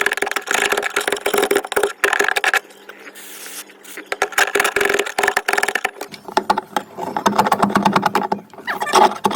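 Old, cold-frozen tar sound-deadening mat being scraped and pried off a car's sheet-metal floor with a crowbar and panel tool: rapid, uneven rasping scrapes and cracks. Partway through they pause for about a second of steady hiss, a canned duster sprayed upside down to freeze the tar.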